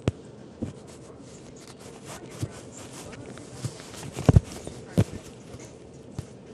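Cats scuffling and pawing on a blanket right at the microphone: scattered soft thumps and rustles, the loudest a quick double knock about four seconds in.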